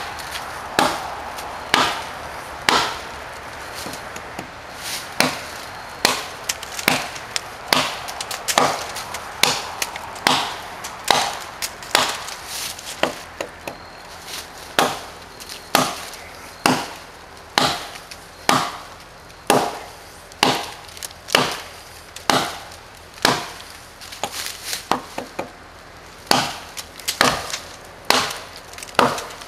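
Gränsfors Bruks Hunter's Axe chopping into a hardwood log: sharp chops coming steadily about once a second.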